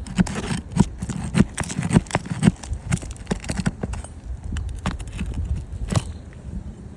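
Roofing nail being worked out of an asphalt shingle: a rapid, irregular run of knocks, clicks and scraping on the shingles, busiest in the first three seconds and sparser after, with one sharper knock near six seconds.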